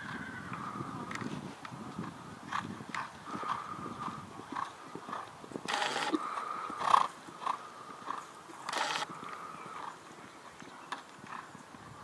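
Horse cantering on a sand arena: irregular hoofbeats, with two louder rushing sounds about six and nine seconds in. A faint steady high tone runs underneath.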